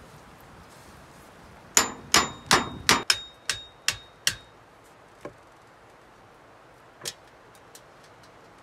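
A run of eight ringing metallic blows on a sheet of thin metal lying on a wooden stump, about two and a half a second, starting about two seconds in. A lighter single hit follows about a second later and another near the end.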